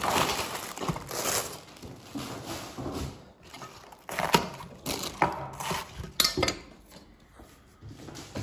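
A plastic bag crinkling as a pak choi is pulled out of it, then a few sharp chops of a large kitchen knife through the pak choi onto a wooden chopping board, the first chop the loudest.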